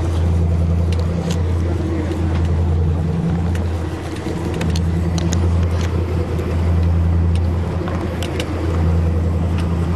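Motorboat engine running steadily, a low even drone, with a few light clicks over it.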